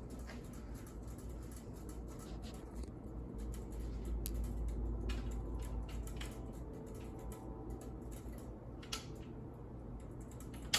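Ceiling fan running on high, a low steady rumble growing louder over the first few seconds, with scattered clicks and crackles from its loose, untightened blades.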